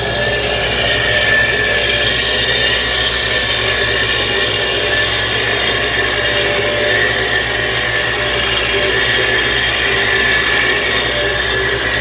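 Small Dynapac ride-on tandem road roller's diesel engine running steadily as the steel drums roll over gravel, with a constant mechanical rattle.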